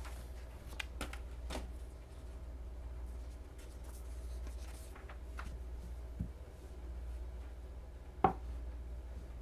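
Handling noise from an all-steel Damascus folding knife on a tabletop: a few light clicks and taps, a dull knock about six seconds in, and a sharper, louder click just after eight seconds, over a steady low hum.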